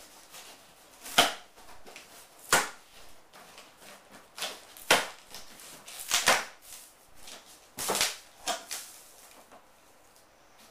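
Cardboard bike box being handled and opened: a series of about six sharp snaps and knocks, a second or more apart.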